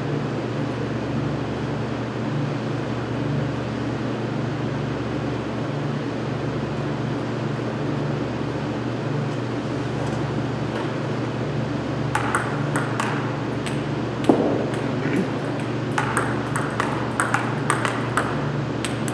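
A steady low hum, and from about two-thirds of the way in, a table tennis ball clicking off bats and table in quick runs, with one louder knock among them.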